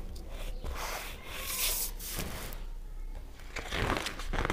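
Paper rustling and rubbing as hands handle the glossy pages of a large book, in a few brief rustles over a low steady hum.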